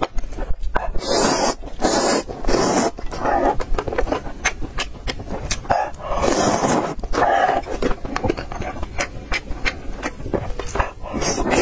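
Close-up slurping of instant noodles in soup, with several long slurps (about a second in, around two seconds, and about six seconds in) and wet chewing and lip-smacking clicks between them.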